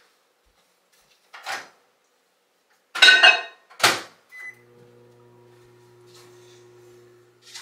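Microwave oven reheating a cup of coffee: a knock, then the door clattering open and clicking shut about three to four seconds in, a short keypad beep, and the oven starting to run with a steady low hum.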